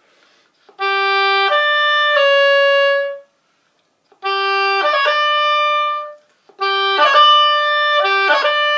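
Oboe playing a bagpipe-style grace-note ornament: a held G flicked quickly through D and C sharp to land on a long D. It is played three times, each a little faster, and the last time the figure is repeated several times in a row.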